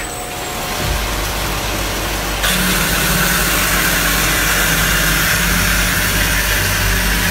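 High-speed automatic bandsaw cutting solid round steel bar into slugs: steady machine running noise, with a low hum coming in about a second in and a loud, even hiss joining abruptly about two and a half seconds in.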